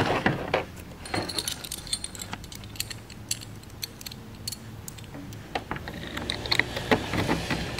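Steel U-bolts and saddle clamps clinking and rattling as they are fitted onto the back of a gun grabber mount: an irregular scatter of small, sharp metallic clicks.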